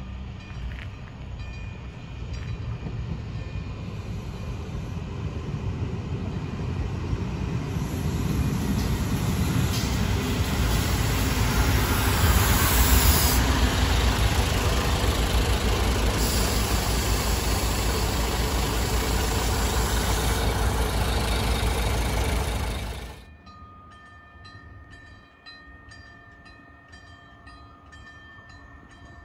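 Fiat ALn 668 diesel railcar approaching and running past close by: engine and rail noise grow steadily louder to a peak about halfway, then cut off abruptly. After that only a faint background remains.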